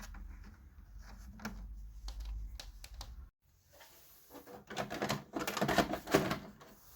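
Canon Typestar 10-II electronic typewriter keys and mechanism clicking. Scattered clicks over a low hum that cuts off abruptly about three seconds in, then a loud burst of rapid clicking and rattling lasting about two seconds.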